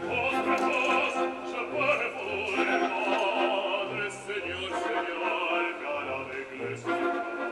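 Baritone singing opera in a full, sustained voice over orchestral accompaniment.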